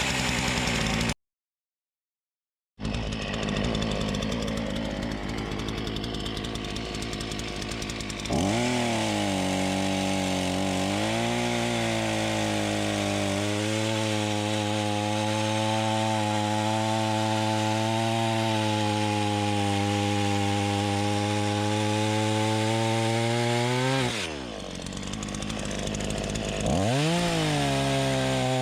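Alpina A3700 two-stroke chainsaw running at high throttle with a steady high pitch. Near the end it drops back briefly and then revs up again. In the first seconds it runs rougher and noisier, as if bogged down under load in wood.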